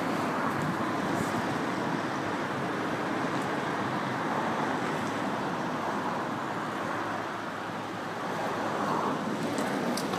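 Steady rushing outdoor background noise, with a couple of brief sharp ticks near the end.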